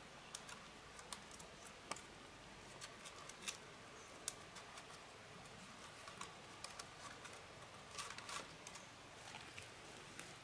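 Scattered light clicks and taps, a few a second and irregular, over a faint steady hiss. They come a little thicker about eight seconds in.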